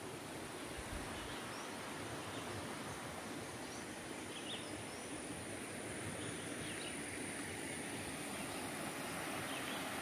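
Riverside outdoor ambience: a steady background hiss with a few faint, short bird chirps scattered through it and a thin, steady high-pitched tone.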